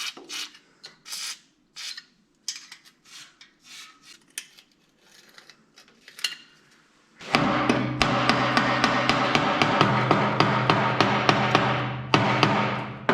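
Scattered metal knocks, taps and scraping from hand-tool work on a rusted muffler. About seven seconds in, music with a steady beat starts abruptly and begins to fade out near the end.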